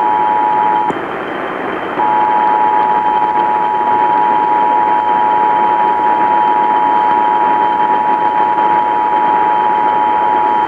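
Emergency Alert System two-tone attention signal, two steady tones sounding together over radio hiss. It breaks off just under a second in and starts again about a second later. It signals that an emergency broadcast is about to follow.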